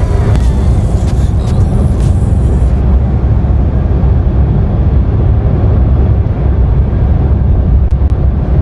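Steady in-cabin road noise of a Perodua Axia driving at 110 km/h, a loud low drone. About three seconds in, the recording switches from the cabin before cheap soundproofing foam was fitted in the doors to the cabin after, and the highest hiss drops away. The meter puts the average about 3 dB lower after the foam.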